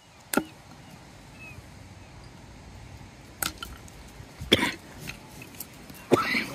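Four sharp knocks and cracks, a second or more apart, of a blade splitting knotty wood into kindling for a campfire, over a steady rushing background.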